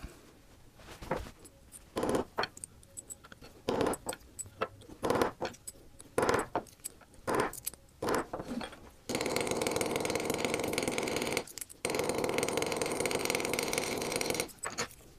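Scattered small metal clicks and taps as a copper tube rivet and discs are handled and set. These are followed by about five seconds of very rapid hammer taps from a small round-faced hammer flaring the rivet on a bench block, run together into a continuous machine-like rattle by the sped-up footage, with a short break in the middle.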